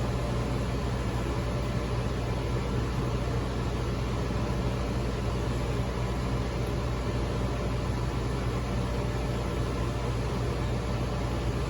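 Steady hum of running HVAC equipment: a constant low drone with an even, fan-like rush over it.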